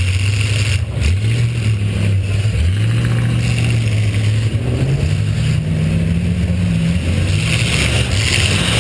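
V8 demolition derby car engine running hard, revving up and down so its pitch rises and falls several times.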